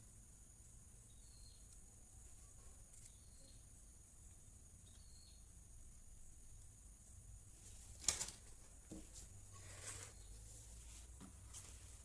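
Quiet room with a steady low hum and three faint high chirps in the first half. About two-thirds of the way through there is a single sharp click, followed by a few softer clicks and knocks.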